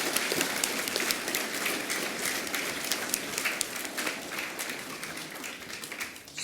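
An audience of schoolchildren applauding, a dense patter of many hands clapping that dies away near the end.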